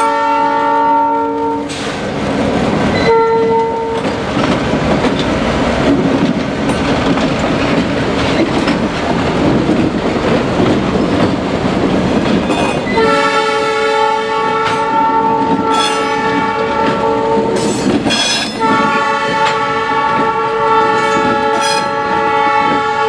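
Diesel locomotive air horn sounding a multi-note chord in separate blasts. The first ends about two seconds in and a short toot follows a second later. Two long blasts come from about thirteen seconds on. Between the blasts, the passing locomotives' diesel engines and steel wheels run loudly, with clicks over the rail joints.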